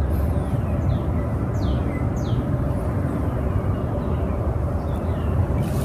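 Outdoor ambience with a steady low rumble, and two quick downward-sweeping bird chirps about two seconds in.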